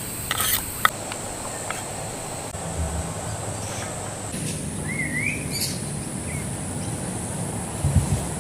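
Outdoor ambience with a short bird chirp, a quick rising-and-falling call about five seconds in, over a steady high-pitched background hum. A few sharp knocks come near the start and again near the end.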